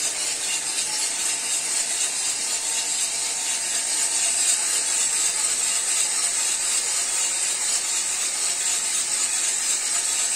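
Cormorant CR600 Electric coffee roaster running mid-roast: a steady rattling hiss of beans tumbling in the turning drum, with the air flow. No first-crack pops yet; the beans are still well below first-crack temperature.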